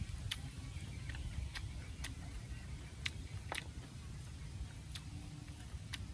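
Close-miked eating of Khmer rice noodles: about seven irregular sharp clicks and smacks from chewing, over a steady low rumble.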